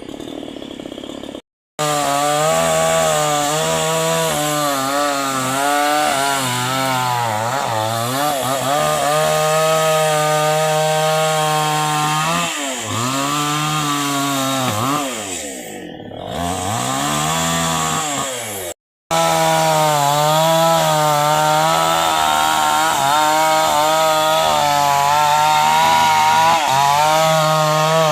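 Chainsaw engine running at high revs while cutting into a tree, its pitch sagging and recovering several times as the chain loads up in the wood and the throttle eases. The sound drops out abruptly for a moment twice.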